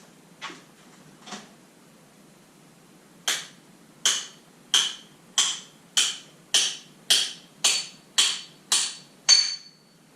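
Hammer blows driving a seized bearing race out of a 1989 Yamaha YZ250's rear suspension linkage: two light taps, then about eleven hard, ringing strikes at a steady beat of nearly two a second.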